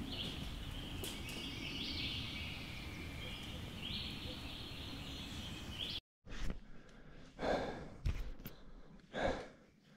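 Outdoor background with steady low noise and high-pitched bird calls for about six seconds. Then a sudden cut, followed by a person's heavy breathing: three loud sighing exhales about a second apart.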